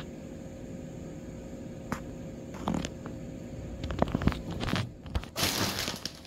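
A few light taps and clicks of a kitten moving on a wooden floor, then, about five seconds in, a loud crinkling rustle of plastic shrink-wrap for about a second.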